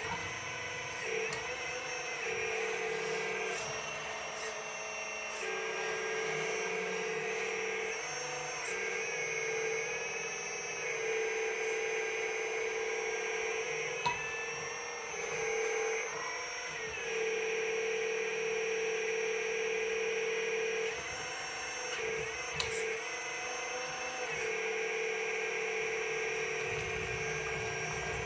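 Radio-controlled scale model CAT hydraulic excavator running: a steady electric motor and pump whine that steps up and down in pitch and loudness as the boom, bucket and swing are worked. There are a couple of short clicks.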